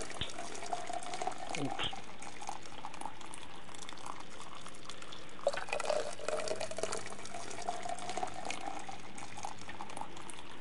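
Homebrewed beer poured through a mesh sieve and plastic funnel into a plastic bottle, the liquid streaming and splashing as the bottle fills. The pouring comes in two spells with a pause between them.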